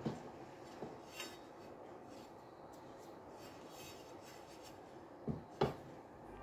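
Honda Vision scooter wheel rims knocking and clunking as they are set down and moved about on a metal workbench. There is a sharp knock right at the start, two lighter ones about a second in, and two more close together near the end.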